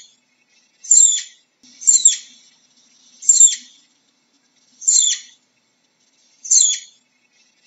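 Flying squirrel calling: five short, high-pitched chirps, each falling steeply in pitch, repeated about every one to one and a half seconds.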